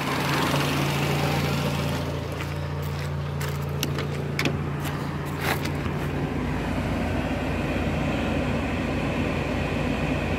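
Fiat Cinquecento engine idling steadily, warmed up to operating temperature. A few short clicks and knocks come in the middle as the car door is opened, and the sound of the running engine changes about six seconds in.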